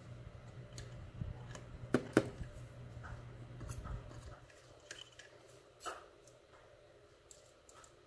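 Light metallic clicks and taps of steel tweezers against a lock cylinder and a plastic pin tray while a spring and pins are picked out of the disassembled lock. A low hum underneath stops about four and a half seconds in.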